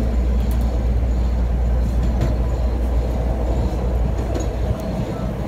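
CTA Green Line elevated rapid-transit train running along its tracks, heard from inside the car: a steady low rumble with a few faint clicks from the rails.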